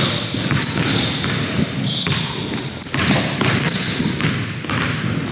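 A basketball being dribbled on a hardwood gym floor during a one-on-one game, with short high squeaks over the bouncing.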